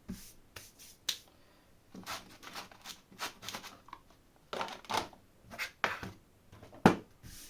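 Objects being handled and moved about on a tabletop: irregular rustles and clicks, with one sharp knock near the end.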